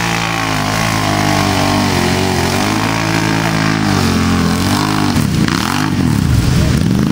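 ATV engine revving hard as the quad churns through a mud pit, its pitch rising and falling with the throttle, then several quick up-and-down revs near the end.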